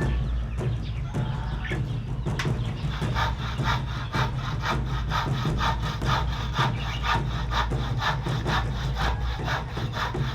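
Hand saw cutting wood in quick, even strokes, about three a second, starting a couple of seconds in, over a steady low hum.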